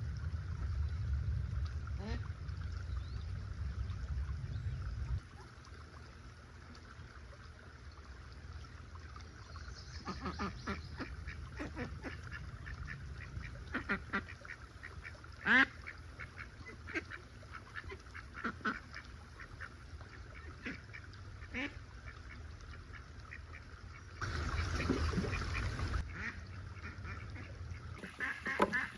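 Ducks quacking on and off, a string of short calls with one louder call about halfway through. A low rumble for the first few seconds and a short burst of noise near the end.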